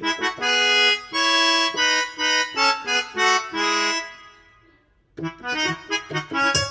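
Yamaha PSR-S970 arranger keyboard playing a free-reed voice of the accordion and harmonica kind: a short melodic phrase of held notes that fades out about four seconds in, then after a brief gap a quicker run of notes.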